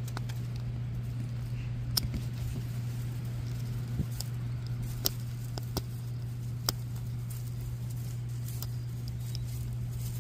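A few sharp plastic clicks and taps, a second or two apart, from a Zuru Mini Brands plastic capsule ball being pried and twisted by hand, over a steady low hum.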